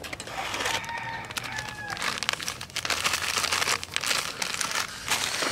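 Coarse salt poured over eels in a steel pot as they are cleaned, giving a dense crackling rustle of many small clicks.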